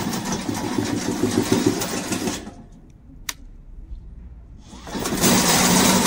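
Brushless electric track drive of a remote-control crawler mower running as it drives, in two spells. It runs for about two seconds and drops away, a short click comes about three seconds in, and it starts up again about five seconds in.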